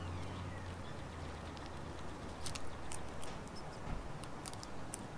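Eastern gray squirrel chewing and cracking bird seed and nuts: a run of small, sharp crunches and clicks, thickest in the second half. A low background rumble fades out about three seconds in.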